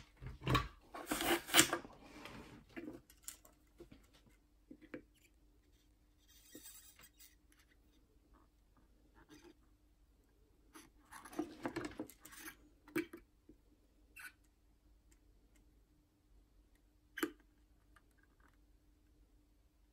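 Faint handling noises of soldering work on a guitar volume pot: short bursts of scraping and rustling from small tools and parts about a second in and again around eleven seconds, and a few sharp clicks, over a low steady hum.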